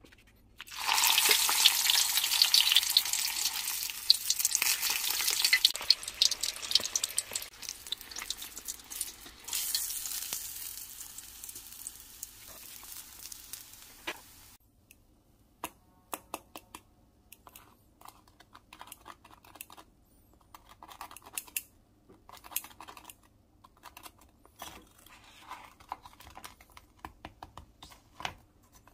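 Pork belly deep-frying in hot oil for its second fry: loud sizzling that sets in about a second in, slowly dies down and stops abruptly about halfway through. After that come faint, scattered clicks and crackles from the crisp fried pork and metal tongs on a wooden cutting board.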